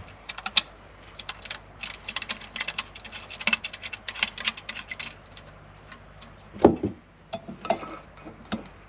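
Rapid light metallic clicks and clinks of small metal parts being handled, a metal flask cap and a brass camping stove, through the first half. A single duller knock about two-thirds of the way in, then a few more scattered clicks.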